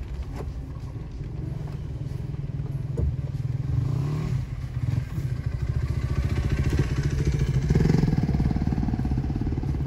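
Pickup truck running slowly along a gravel trail road with its tyres on the gravel, and a dirt bike's engine passing close by about four seconds in; the engine sound grows louder through the second half.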